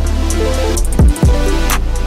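Background electronic music with heavy bass and a drum beat.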